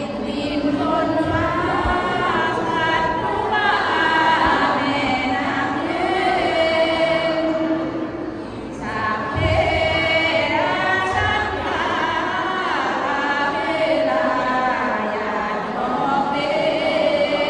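A small group of women singing Sarabhanya, the melodic Thai Buddhist devotional chant, unaccompanied, in long held notes, with a short pause a little past halfway.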